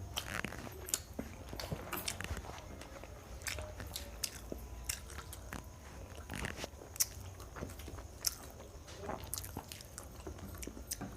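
Eating sounds: chewing and biting of chilli chicken and fried rice eaten by hand, with irregular small crunches and clicks.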